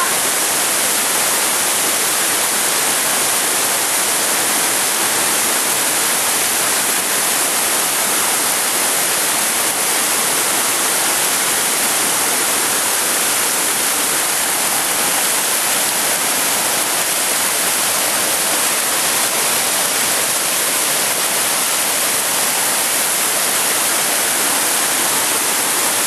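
Small waterfall cascading down a rocky face, a loud, steady rush of falling water with a hissy, high-pitched character.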